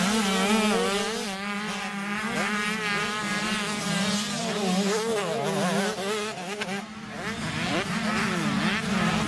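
Several 85cc two-stroke motocross bikes revving hard, engine pitch rising and falling quickly as the riders work the throttle over the ruts.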